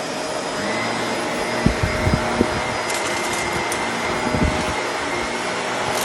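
Vacuum cleaner running steadily with a motor whine, with a few low knocks about two seconds in and again later, and some light rattling clicks in between, as debris is sucked up.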